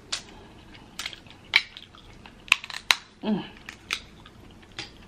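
Dungeness crab leg shells cracking and snapping as they are broken open by hand: a string of separate sharp cracks, with a brief vocal sound a little past three seconds in.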